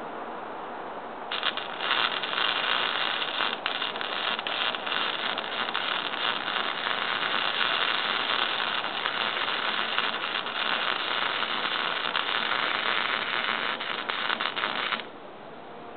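Lincoln wire-feed welder's arc crackling and sizzling steadily as a weld bead is run, starting about a second in and cutting off sharply near the end when the trigger is released.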